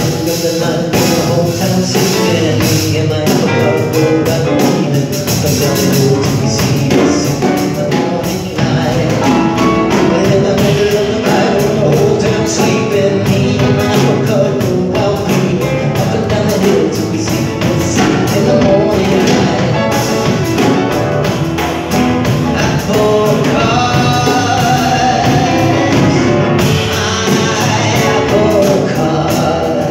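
Live band music: acoustic guitar, upright bass and piano playing a song together.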